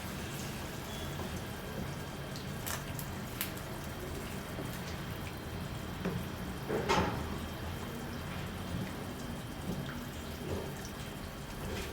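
Fish stew simmering in a pot: quiet bubbling with scattered small pops and clicks, a slightly louder burst about seven seconds in.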